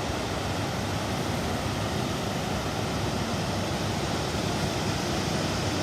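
Steady rushing noise of sea surf and wind at the shore, even throughout with no separate wave crashes.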